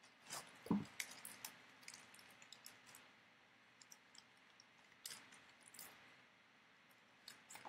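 Faint crinkling and clicking of a foil trading-card pack wrapper as hands open it, with a soft thump a little under a second in.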